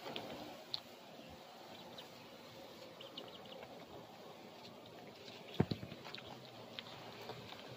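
Goat biting and chewing the flesh of a cucumber: scattered soft crunches and mouth clicks, the loudest pair about two thirds of the way through.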